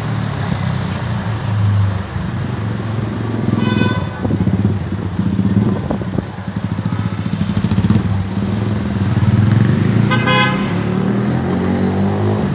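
Steady low rumble of street traffic and vehicles, with two short horn toots, one about four seconds in and one about ten seconds in.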